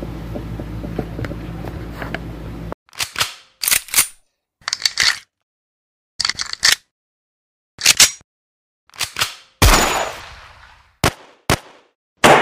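Steady room hum for the first few seconds, then an outro of edited gunshot sound effects: a quick run of sharp shots with dead silence between them, and one bigger blast near the end that dies away slowly.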